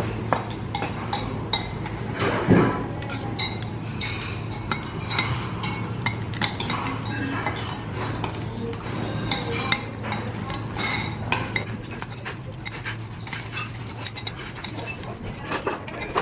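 Utensils clinking and tapping against dishes, many small irregular clicks over a steady low hum, with a duller knock about two and a half seconds in.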